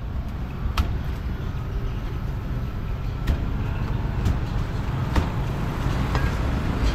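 Steady low rumble of street traffic, with about five sharp knocks of a cleaver chopping roast pork belly on a wooden chopping block, one near the start and then roughly once a second through the second half.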